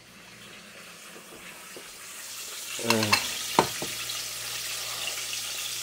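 Vegetable oil sizzling in a frying pan, a steady hiss that grows louder over the first couple of seconds and then holds. About three seconds in come a brief vocal murmur and a short knock.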